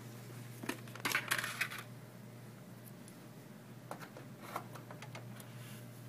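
Plastic clicks and rattles of DDR3 memory modules being pressed into a motherboard's DIMM slots: a quick cluster of clicks about a second in, then a few single clicks. A click from the slot's retention latches is the sign that the module is seated securely.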